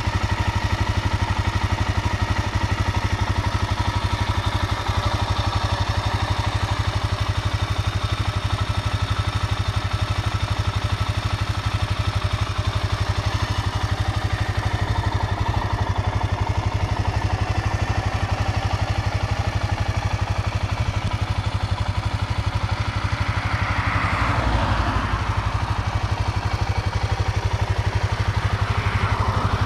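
Suzuki DR-Z400S single-cylinder four-stroke engine idling steadily, with an even, fast thumping beat.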